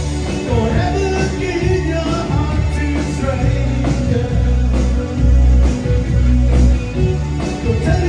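Rock band playing live through a concert PA: drum kit keeping a steady beat under bass, electric guitar and keyboard synthesizer, with a man singing.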